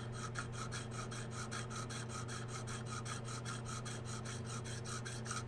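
KME tapered diamond rod rasping back and forth in a serration of a steel knife blade, in quick, light, even strokes about six a second, stopping near the end. The serration is being honed with no pressure until its Sharpie marking is worn away.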